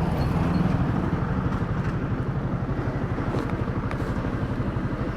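Motorcycle engine idling with an even, rapid pulse. The engine has a rattle that turns out to come from loose tappet nuts.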